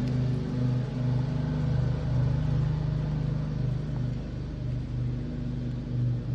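A motor running steadily with a low, even hum that swells and eases slightly.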